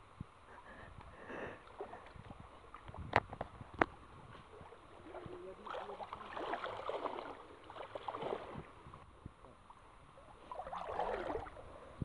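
Stream water sloshing and splashing as people wade through it, coming in uneven bursts around the middle and again near the end. Two sharp clicks a little over three seconds in.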